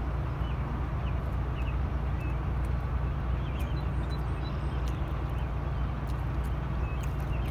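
Low, steady rumble of an idling semi truck's diesel engine, with a few faint short bird chirps over it.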